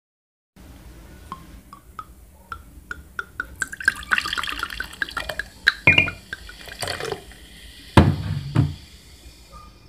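Liquid poured from a bottle into a glass: separate drips at first, coming faster and faster, then a splashing pour into the glass. In the second half come a few loud knocks.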